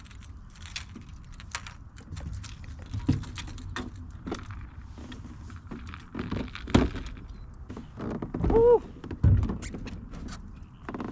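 Fishing gear being handled: scattered clicks, rattles and knocks, the loudest about two thirds of the way through and again near the end. A brief pitched sound that rises and falls comes about eight and a half seconds in.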